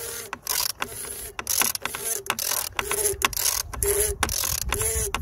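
Torque wrench ratcheting in quick back-and-forth strokes, a steady run of clicks about two to three a second, as the oil filter housing cap is tightened to its torque.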